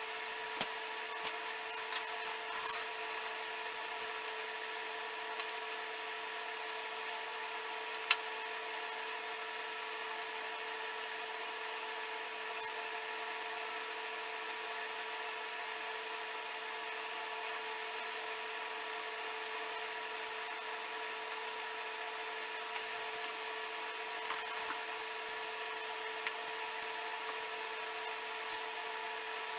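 A steady hum made of several fixed tones, with scattered light clicks and taps from wooden staves and a glue bottle being handled on a workbench; the sharpest tap comes about eight seconds in.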